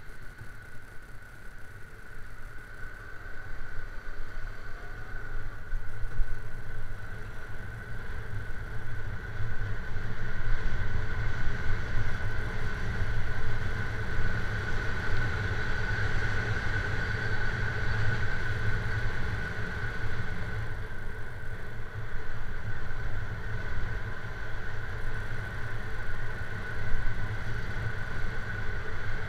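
Yamaha R15 motorcycle's single-cylinder four-stroke engine and wind rush while riding, growing louder over the first ten seconds as it picks up speed and then running steadily, with a steady high whine throughout.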